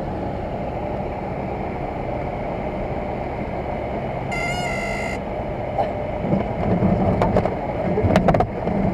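Single-engine light aircraft's engine at low power on short final to a grass strip. About halfway through, a short steady horn tone sounds for under a second, the stall-warning horn in the landing flare. In the last few seconds the wheels touch down and rumble and knock over the rough grass.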